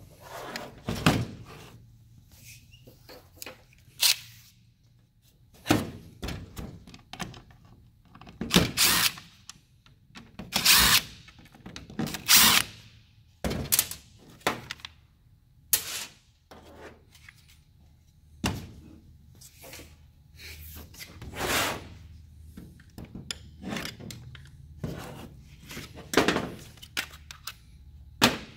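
Plastic gear selector parts and tools knocking and clacking on a workbench, with several short bursts from a DeWalt cordless impact driver backing out the housing screws.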